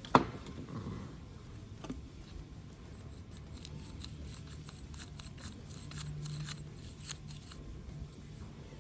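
A car door latch assembly being handled and fitted back together: one sharp click just after the start, then a run of small irregular clicks and rattles of its metal and plastic parts.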